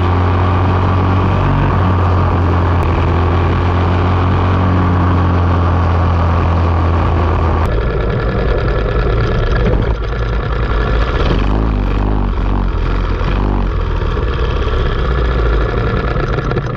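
Racing kart engine heard from onboard, running steadily at speed, then changing to a lower, choppier note about eight seconds in as the kart slows into the pit area.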